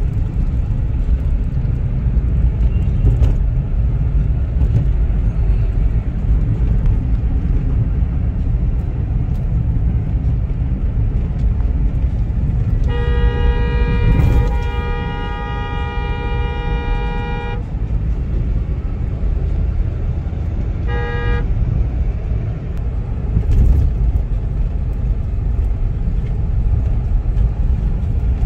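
Steady road and engine rumble inside a moving car's cabin. A vehicle horn sounds one long, steady honk of about four seconds near the middle, then a short second honk a few seconds later.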